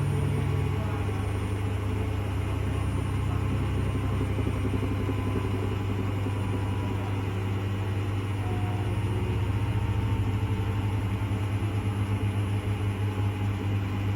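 Car running with a steady low drone, a fast pulsing flutter coming into it about ten seconds in. The owner puts this weird sound down to the car's shock absorbers.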